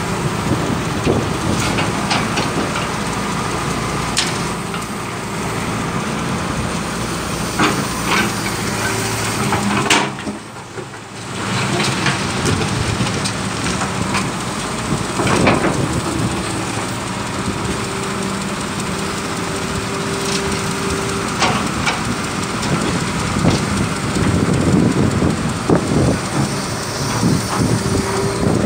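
Hitachi hydraulic excavator's diesel engine running steadily as it digs, with scraping and clatter of the bucket in soil and stones. The sound drops out briefly about ten seconds in.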